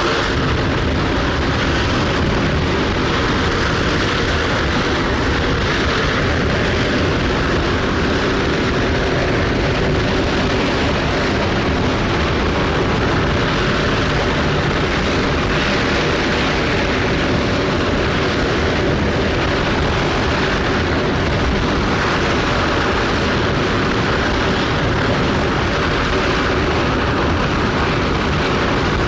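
J-2X hydrogen-oxygen rocket engine firing on its test stand: a loud, steady noise that does not change.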